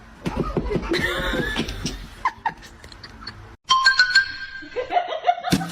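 Music with laughter-like voices in the first half, then a sudden change to a few held tones, and louder rhythmic music starting near the end.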